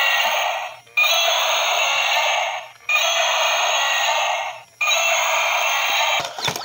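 Battery-powered walking dinosaur toy playing its electronic roar through a small speaker, the same roar of about two seconds repeating with short breaks between.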